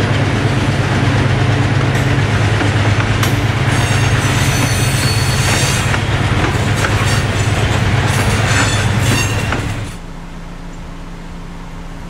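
Freight train's covered hopper cars rolling past on a curve: a steady heavy rumble of wheels on rail, with high wheel squeal coming and going from about three seconds in. The sound cuts off sharply near the end to a much quieter steady hum.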